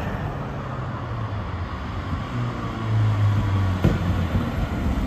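Car engine running steadily, its note swelling louder for about a second midway, with a single sharp click near the end.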